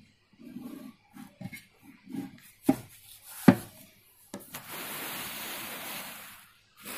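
Writing by hand during a lesson: short scratchy strokes and a couple of sharp taps, then about two seconds of steady scraping.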